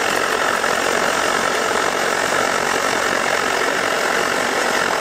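Svea 123R white-gas stove burning steadily with a blue flame: its brass burner gives a loud, even hiss.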